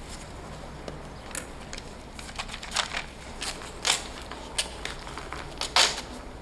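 Paper banknotes rustling and flicking as they are counted out by hand: a run of crisp snaps, the loudest near the end.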